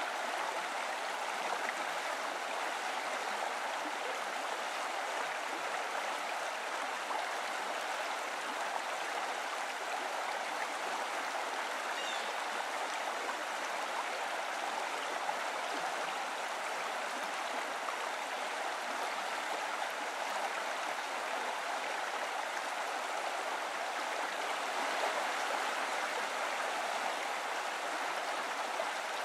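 Stream water running steadily, an even rushing hiss with no breaks.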